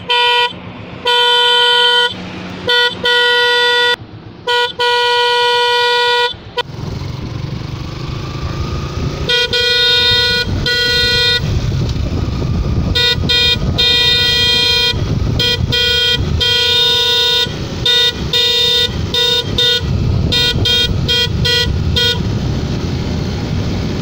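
Suzuki Gixxer motorcycle's stock and custom horns sounded together: several honks of varied length with the bike standing. About six seconds in, the bike's engine and wind noise while riding take over, with a long run of short, repeated honks over them.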